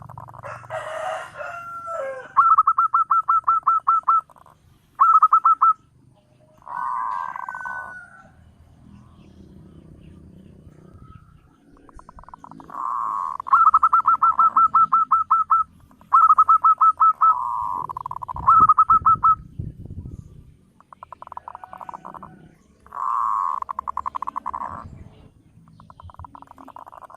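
Zebra doves (perkutut) cooing: repeated phrases of rapid, short notes, each phrase lasting a second or two with pauses between.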